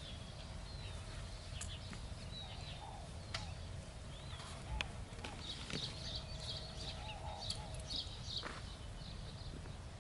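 Small birds chirping in quick repeated series over a steady low background rumble, with a few faint clicks.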